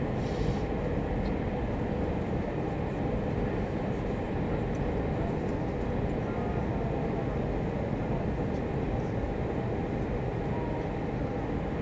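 Steady cabin noise inside an Airbus A320 on final approach: a constant drone of the jet engines and rushing air.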